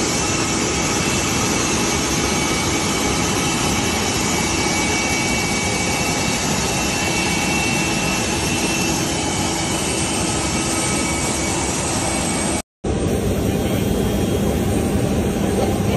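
Jet engine noise from a Bombardier Global 7500 business jet standing on the apron: a steady rush with a faint whine. It drops out for a moment about three-quarters of the way through, then carries on.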